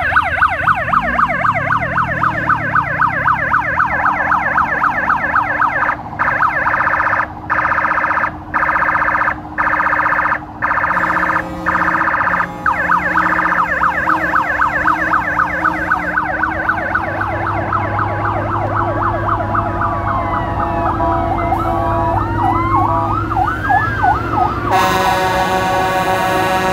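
Emergency-vehicle sirens: a fast yelping siren cutting out briefly several times, then slower wailing sirens overlapping. About 25 s in, a truck's air horn comes in with a steady chord.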